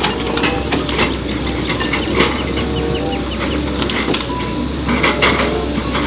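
Diesel engines of log-grapple excavators running with a steady low hum while timber logs knock and clatter against each other as they are grabbed and moved. A run of short high chirps sounds about two to three seconds in.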